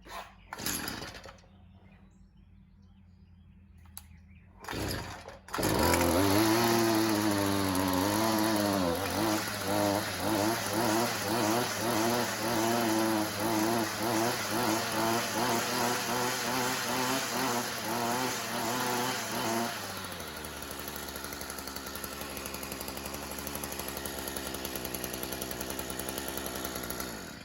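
Stihl FS55R string trimmer's two-stroke engine being pull-started on choke after a carburetor and recoil starter replacement. After two tugs of the starter rope it catches about five and a half seconds in and revs hard and unevenly in quick surges. About twenty seconds in it settles to a lower, steady idle, then cuts off just before the end. It starts easily on the new parts.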